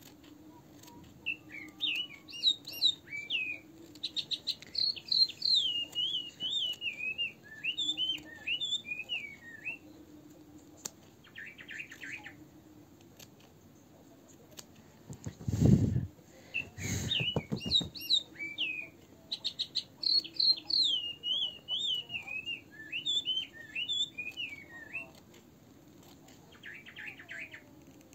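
A songbird sings a long, fast warbling song of chirps and trills, in two long bouts with a pause between. During the pause, about halfway through, come two loud low bumps or rumbles.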